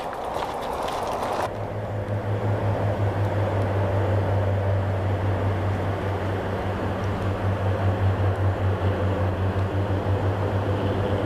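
A steady low mechanical drone, like an engine or motor running, that sets in about a second and a half in and wavers slightly in loudness.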